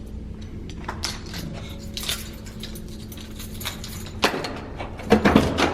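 Scattered clicks, clinks and knocks of things being handled and moved about in a room, with a sharper knock about four seconds in and a few more near the end, over a steady low hum.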